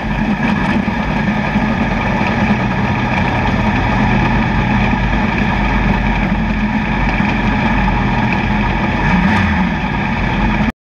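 Pro Stock dirt race car's V8 engine, heard on board, running steadily with no big revs. The sound cuts off abruptly just before the end.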